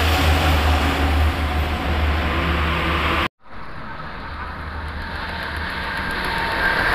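Toll-road traffic noise with a heavy low rumble that breaks off abruptly about three seconds in. It resumes quieter and grows louder as a small box truck and cars approach.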